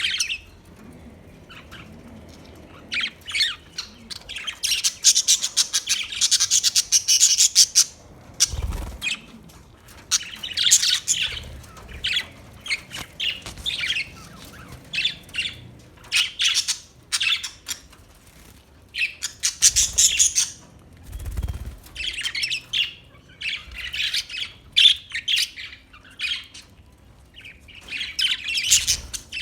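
Pet budgerigars chirping and squawking in rapid bursts of one to three seconds, with short pauses between them. Two dull thumps sound about a third and two thirds of the way through.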